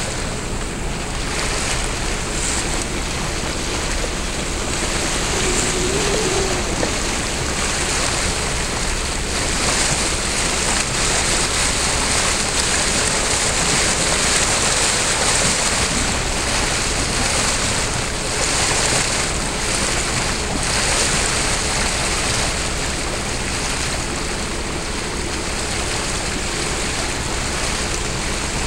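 Steady rushing and hissing of turbulent tidal-rip water where two tidal currents collide, with wind buffeting the microphone.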